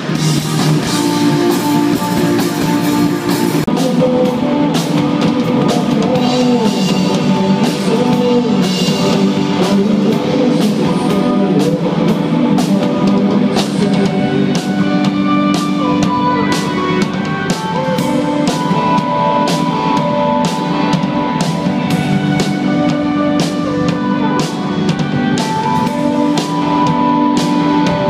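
Rock band playing live: a drum kit keeps a steady beat under electric guitars.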